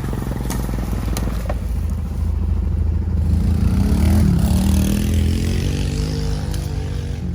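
Small engine of a homemade tractor running steadily, its pitch shifting up and down and its sound loudest about four seconds in.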